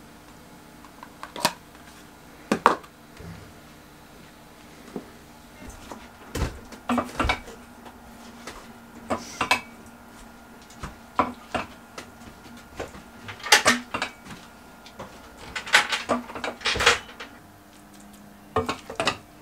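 Serving spoon clinking and scraping against a stainless steel pot and ceramic plates as pasta is dished out: a string of irregular sharp clinks and knocks over a faint steady hum.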